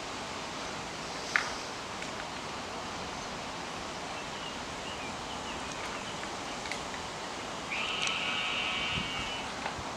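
Steady outdoor background noise with one sharp click about a second in, and a buzzy, raspy call lasting about two seconds near the end.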